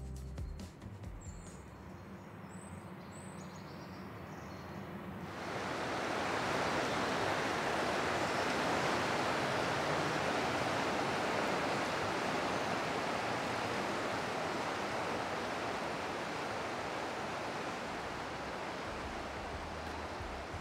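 Steady rush of river water, cutting in abruptly about five seconds in after a quieter stretch.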